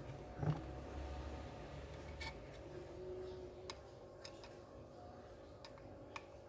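Small clicks, taps and a knock from hands handling laptop parts and tools while an SSD is being fitted, over a faint steady hum. The knock comes about half a second in, followed by scattered light ticks.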